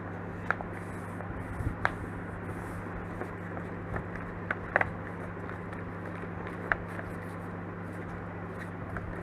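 A sheet of coloured craft paper being folded and creased by hand, with a few faint short crinkles and taps over a steady low hum.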